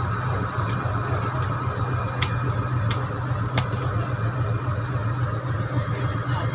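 GE WDG4G diesel-electric locomotive's engine running with a steady low hum as it moves past at close range. Five sharp clicks come about every 0.7 s in the first four seconds.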